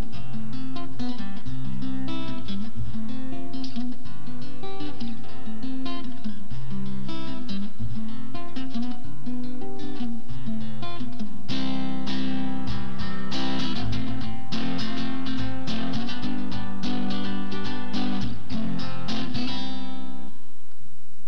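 Classical nylon-string guitar played through a do–fa–sol (C–F–G) chord passage. It is picked note by note for about the first half, then strummed in full chords. The last chord rings off shortly before the end.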